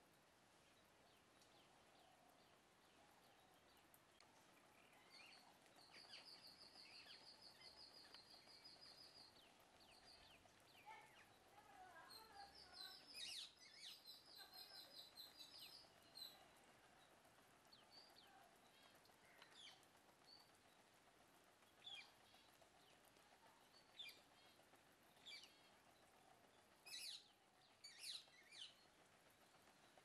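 Birds calling faintly outdoors: two spells of rapid, high, pulsing trills in the first half, then a run of short, sharp, shrill calls, loudest and closest together near the end.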